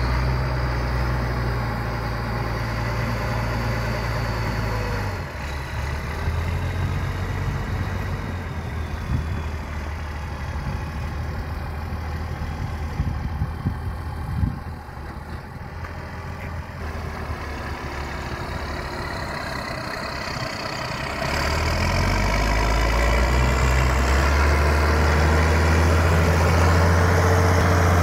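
Deutz AX 4.145 tractor's diesel engine running steadily as it tows an implement across a field, dropping somewhat in the middle with a few brief knocks, then growing louder about three-quarters of the way through as it comes close.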